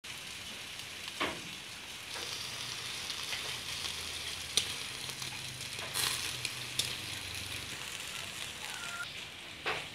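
Pork and chicken thighs sizzling on a wire grill rack over charcoal: a steady hiss, broken by a few sharp clicks.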